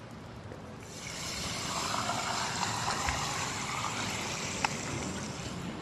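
Carbonated water poured from a plastic bottle into a glass of ice, close-miked on a dummy-head microphone. A steady pouring hiss and fizz starts about a second in, with small crackles and one sharp clink near the end.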